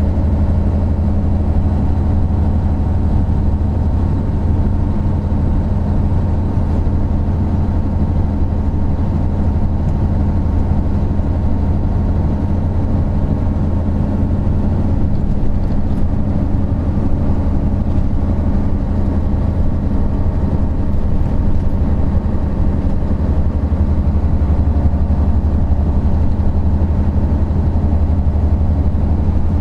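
Isuzu Gala III coach's 12PE1 V12 diesel engine running as the bus travels, a steady low drone that holds an even pitch and level.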